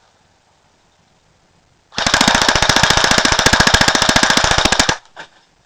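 Pulse R76 AK-74-style airsoft electric gun firing on full auto: one burst of fast, evenly spaced shots starting about two seconds in and lasting about three seconds, then a single short blip.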